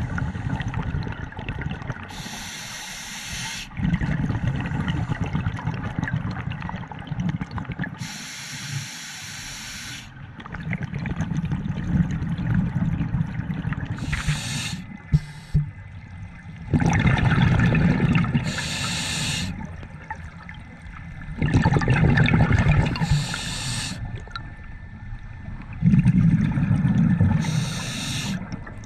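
Scuba diver breathing through a regulator underwater: a short hiss on each inhale, then a longer, louder bubbling rumble as the exhaled air escapes, about five breaths at an even pace.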